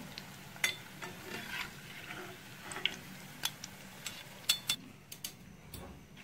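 Wire spider strainer clinking sharply against the rim of a steel pot several times as battered fried cauliflower is lifted out of hot oil to drain, over a faint sizzle from the oil.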